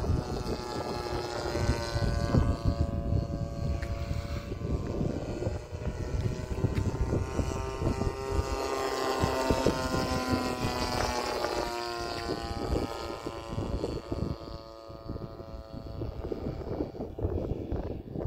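Radio-controlled model airplane's motor and propeller buzzing steadily in flight, the pitch bending up and down as it passes and turns overhead, with wind buffeting the microphone.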